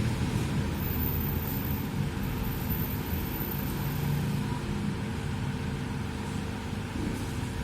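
Steady low rumble with a faint hiss and a thin steady hum, without distinct events.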